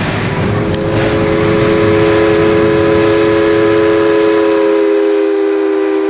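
Paddle steamer's steam whistle sounding one long blast, a chord of several notes held steady, starting a fraction of a second in over a low machinery rumble and hiss.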